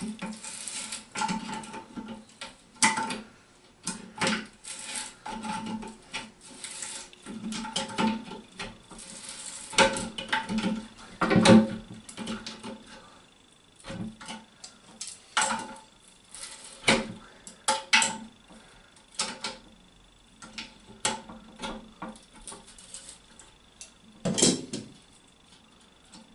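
Irregular clicks, clinks and knocks of a ceramic toilet cistern and its plastic and metal fittings as its fixing bolts are nipped up onto the pan, with the loudest knocks about eleven seconds in and again near the end.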